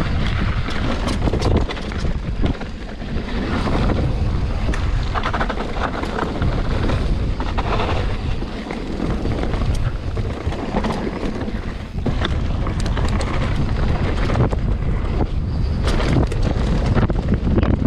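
Wind rushing over the microphone of a mountain biker's camera on a fast downhill run, with a constant clatter of short rattles and knocks from the bike over rough trail.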